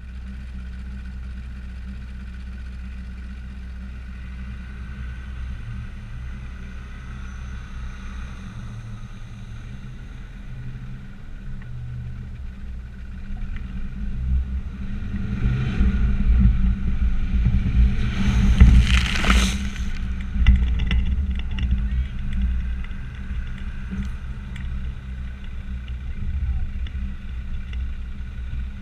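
Land Rover Discovery Td5's five-cylinder turbodiesel engine running under load while driving off-road, its rumble growing louder from about halfway. A brief loud rushing noise comes about two-thirds of the way through.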